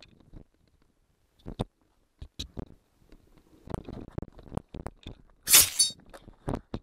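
Quick knocks and thuds of hurried footsteps and handling on concrete. About five and a half seconds in comes a short, loud rushing burst, then a few sharp knocks as cardboard tubes fall onto the pavement.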